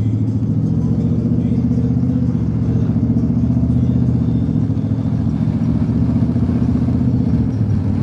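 Ford 4x4 pickup's engine and exhaust running while the truck cruises, heard from inside the cab as a low, steady drone.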